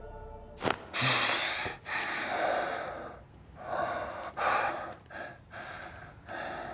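Ambient music cuts off abruptly just under a second in. Then a man gasps and breathes hard in a run of quick, heavy breaths as he wakes with a start.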